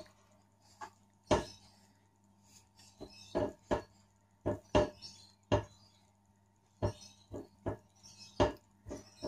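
Cutlery clicking and knocking against a plate in about a dozen irregular sharp taps, as a boiled artichoke is cut and scraped apart.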